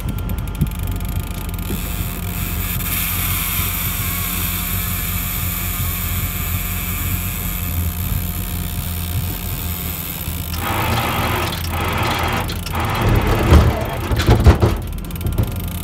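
A boat motor runs with a steady low hum. About ten seconds in, bursts of rushing noise set in, with a couple of loud thumps near the end.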